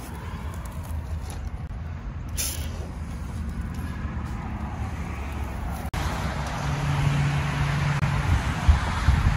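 Road traffic noise: a steady rush of passing cars with a low rumble, getting louder in the second half as a vehicle goes by.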